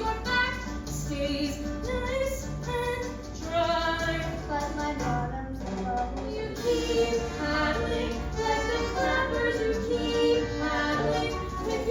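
Show-tune music: a woman's singing voice carrying the melody over instrumental accompaniment.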